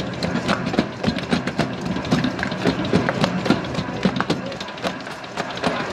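Commercial dough mixer running, its motor humming steadily while the hook kneads a heavy bread dough in the steel bowl, with irregular slaps and knocks of the dough against the bowl.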